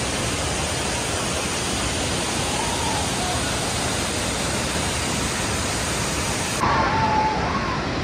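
Steady roar of a large waterfall, an even rush of falling water. A little past six seconds in, the sound changes abruptly and grows slightly louder, with a brief faint voice over it.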